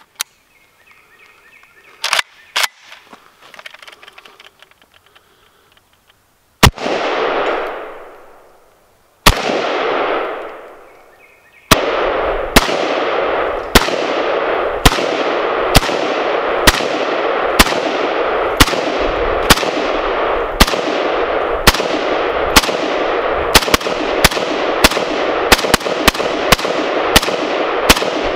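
AK-pattern rifle shots, each with a long echoing tail. There are three shots spaced a few seconds apart, then steady fire about once a second that comes quicker near the end.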